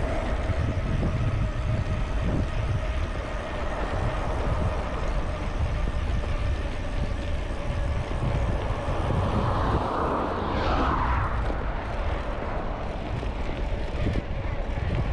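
Wind buffeting an action camera's microphone while riding a bicycle, with road traffic going by alongside; one vehicle passes about ten seconds in.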